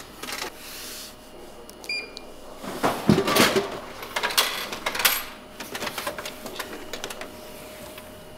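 Drink vending machine: a coin clicks in, then a can drops into the dispenser tray with a heavy clunk about three seconds in, followed by a few rattling clicks.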